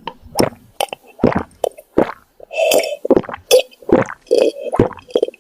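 Cartoon drinking sound effect: a fast run of short, wet gulps and plops, several a second.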